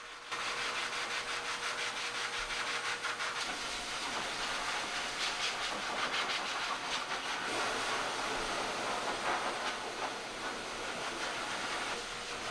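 Hose-nozzle pet grooming blow dryer blowing air through a cat's long coat. It makes a steady rushing hiss that gets louder just after the start and has a rapid flutter to it.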